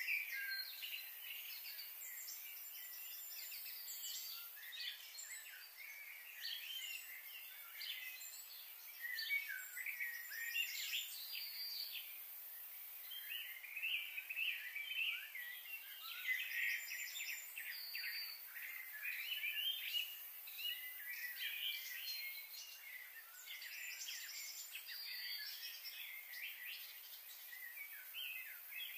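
Birds chirping and calling in quick, overlapping notes, with a faint steady hiss of outdoor background noise underneath.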